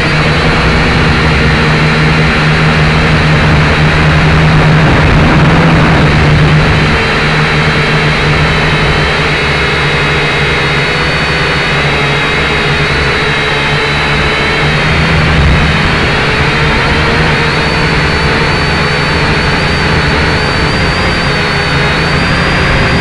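A multirotor drone's electric motors and propellers, heard up close from on board, give a steady droning hum with a high whine above it. The pitch shifts slightly as the drone flies.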